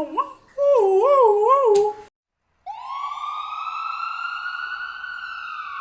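Toy ambulance siren warbling up and down about three times a second for about two seconds. After a brief gap comes one long siren tone that slowly rises and drops off near the end.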